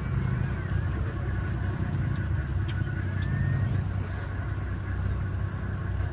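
Safari vehicle's engine running at idle, a steady low rumble heard from inside the open-topped vehicle.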